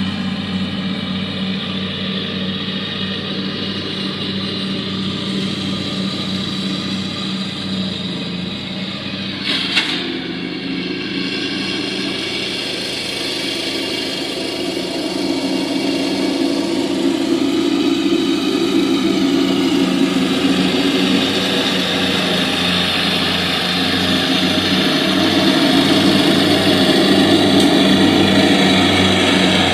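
Lawn mower engine running steadily, with one sharp click about a third of the way through; the engine grows louder in the second half.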